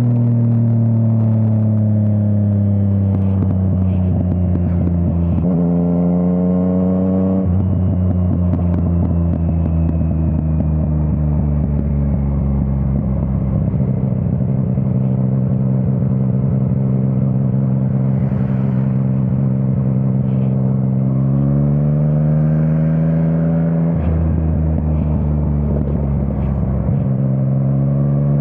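Yamaha MT-09 three-cylinder engine through an Akrapovič exhaust, heard from the rider's seat: the revs fall away at first, then climb, with a sudden drop in pitch at a gear change a few seconds in and again past the middle, holding steady between and rising again near the end.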